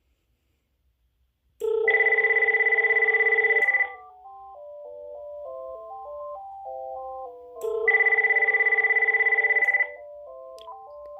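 Uniden TRU9488 cordless phone ringing on an incoming test call: two loud, rapidly warbling electronic ring bursts of about two seconds each, some six seconds apart, with a quieter beeping tune of short notes playing between and under them.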